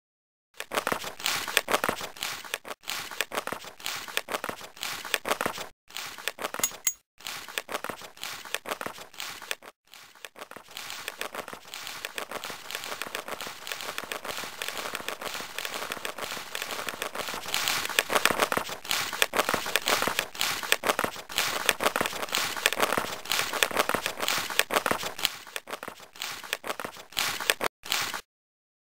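Continuous crinkling, crackling noise, broken by several brief silences.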